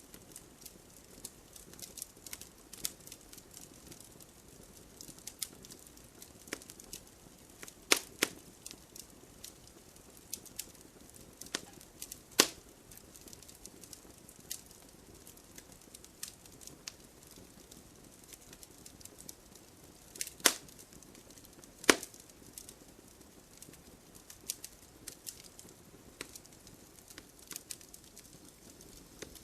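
Wood fire burning in a fireplace, crackling: a steady scatter of small pops and snaps over a soft hiss, with four louder sharp snaps spread through it.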